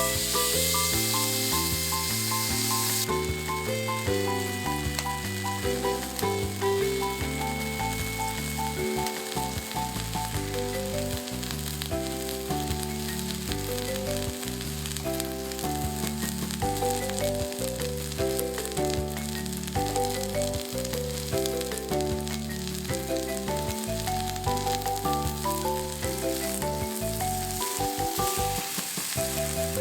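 Steak sizzling in a hot campfire frying pan, a steady frying hiss that is strongest in the first few seconds, under background music with a melody and bass line.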